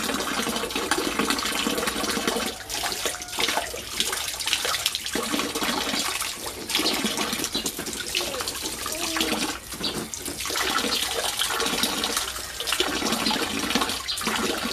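Water spraying and running into a shallow inflatable paddling pool, with uneven splashing as a child wades through the water.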